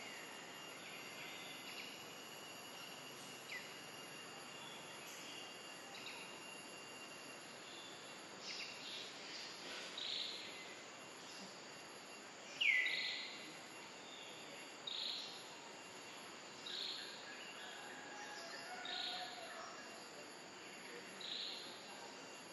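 Forest ambience: a steady high insect hiss, with a bird calling again and again in short high notes about every two seconds through the second half. The loudest note, just past the middle, is a quick falling whistle.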